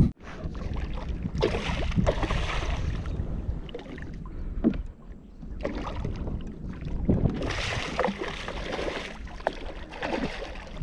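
Water splashing and sloshing around a kayak in three bursts of a second or so, with a few light knocks between them.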